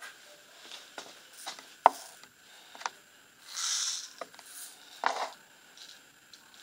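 Hands squeezing and pressing slime, giving a few sharp clicks and pops, the loudest about two seconds in and another about five seconds in, with a short soft hiss near the middle.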